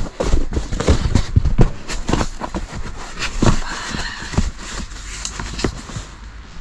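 Foam sleeping mat being unrolled and spread flat on a camp cot, with irregular bumps, rustling and scraping of the foam against the cot and tent.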